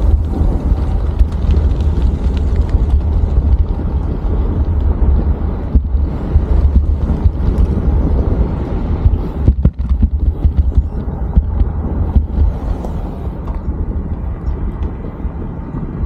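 Wind buffeting the microphone of a camera on a moving bicycle: a loud, steady low rumble mixed with road noise.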